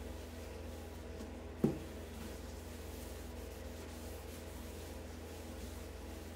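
Soft rubbing of a cloth wiping wet finish across a wooden chair seat. A short, sharp squeak about one and a half seconds in, falling quickly in pitch, is the loudest sound, over a steady low hum.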